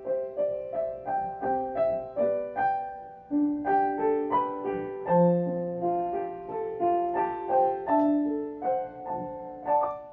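Outro music: a piano or keyboard melody of separate struck notes, about two to three a second, that ends with a final note ringing out.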